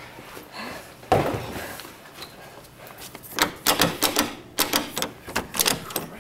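A loud bang about a second in, then a fast, irregular run of sharp metal clacks as a metal lever door handle is rattled and its latch worked.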